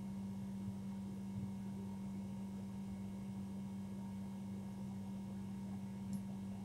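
Steady low electrical hum over quiet room tone, with a fainter higher steady tone above it.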